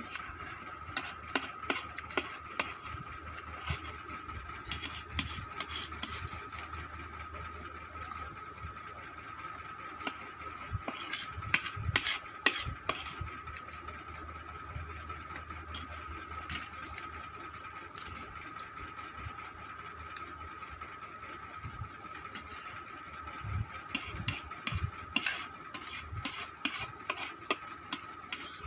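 Eating Maggi instant noodles: scattered clicks, taps and scrapes of a utensil against a bowl, mixed with mouth sounds. The clicks come in busier flurries about eleven seconds in and again near the end, over a steady faint high whine.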